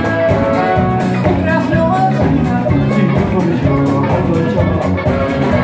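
Ethiopian popular music played live and loud by a full band: a male singer over electric bass, keyboard and drums, with a steady beat.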